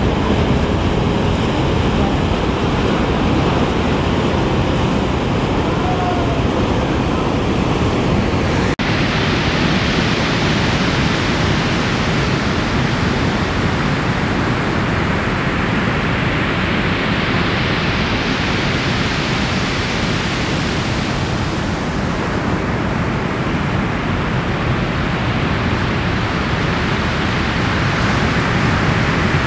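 Ocean surf breaking and washing, heard as a steady rush of noise with wind on the microphone. About nine seconds in the sound shifts and turns hissier.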